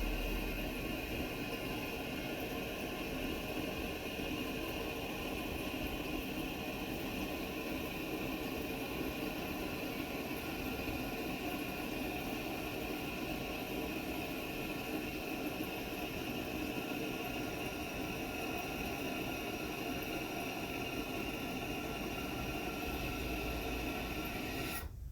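Toilet cistern refilling after a flush: water hissing steadily through the fill valve, then cutting off suddenly near the end.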